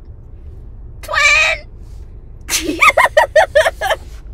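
A high-pitched shouted "Twin!" about a second in, followed by a person laughing hard, in about eight quick loud ha's.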